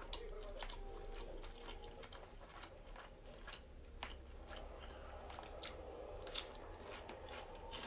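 Close-miked chewing and mouth sounds of a person eating tuna-stuffed squid: soft wet clicks and smacks, with a louder bite about six seconds in as a new piece goes into the mouth.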